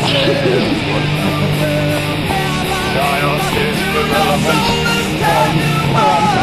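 Loud heavy rock music with electric guitar, playing steadily throughout.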